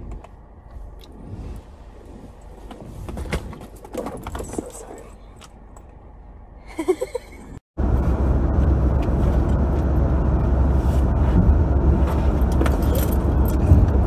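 Small clicks and rustles of things being handled in a car. About halfway through it changes to a steady, louder road-noise rumble inside a moving car's cabin, with the rattle and rustle of a backpack being rummaged through and lifted.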